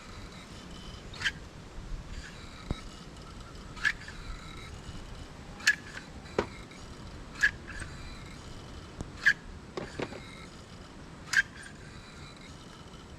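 A series of sharp knocks, about six clear strikes spaced roughly one and a half to two and a half seconds apart, with a few fainter taps between them.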